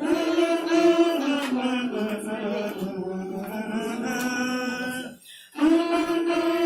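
Worship singing: a voice holds long sustained notes. It breaks off briefly a little past five seconds in, then comes back on a held note.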